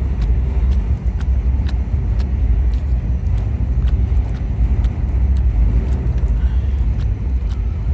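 Propane roofing torch burning with a steady low roar while heating a roof patch, with faint scattered ticks over it.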